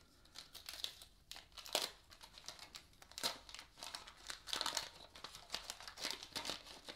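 Wax paper wrapper of a 1981-82 Topps basketball card pack crinkling and tearing as it is unfolded and peeled open by hand, in a run of irregular crackles.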